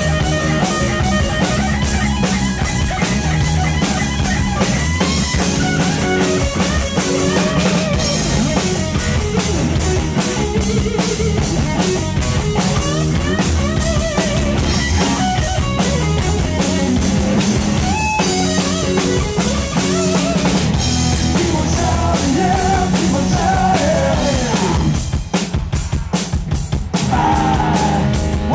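Live rock band playing an instrumental passage: electric guitar over drums and bass guitar. About 25 seconds in, the band breaks into a few sharp, separated hits with short gaps, then comes back in full.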